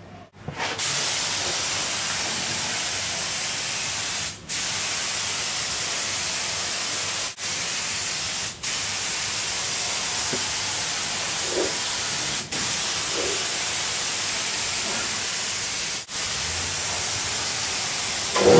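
Gravity-feed spray gun spraying clear coat, a steady hiss of compressed air and atomised paint. It starts about a second in and stops briefly about five times as the trigger is let off between long passes.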